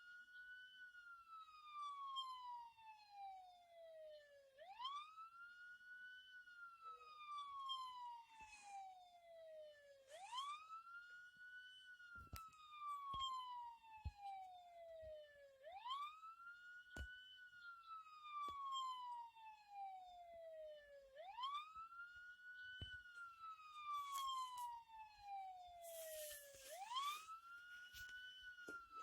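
Police siren wailing: each cycle climbs quickly in pitch, then falls slowly over about five seconds, and repeats about every five and a half seconds. A few faint clicks are heard in between.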